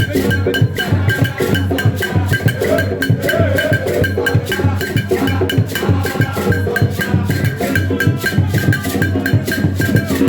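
Music with a steady percussion beat, played loud through the hall's sound system during a sound check.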